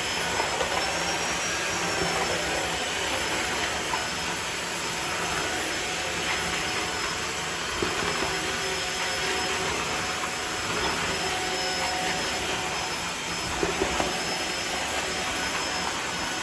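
Tineco cordless wet-dry floor washer running as it is pushed over a tiled floor: a steady motor and suction noise with a faint high whine, and a few light knocks about three quarters of the way through.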